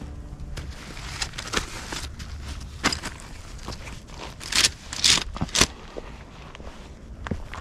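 Nylon tent stuff sacks rustling and swishing as they are picked up and carried, with footsteps on dry leaves and dirt. Three louder rustles come close together about halfway through.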